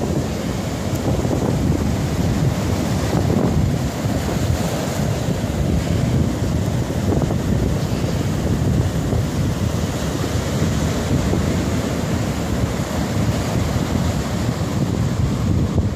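Sea surf breaking and washing up the sand in foam, with wind noise rumbling on the microphone.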